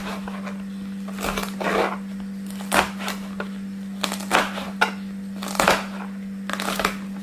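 Kitchen knife chopping large red chilies on a plastic cutting board: irregular crisp chops, about one or two a second, each blade stroke ending in a tap on the board. A steady low hum runs under them.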